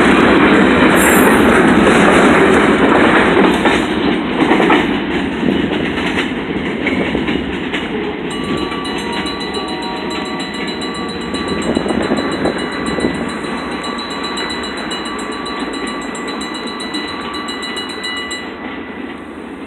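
Freight train boxcars rolling past close by, clattering over the rail joints, then fading steadily as the end of the train moves off down the track. From about the middle, thin steady high-pitched tones sound faintly over the rumble.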